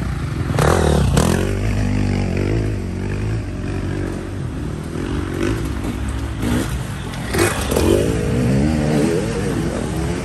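Dirt bike engines revving up and down as the bikes ride the race track, swelling louder as bikes pass about a second in and again around seven to eight seconds.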